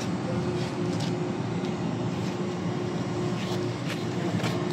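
Ship's deck crane machinery running with a steady drone: a constant hum over a low rumble, with a few faint light ticks, while the crane handles a cargo grab.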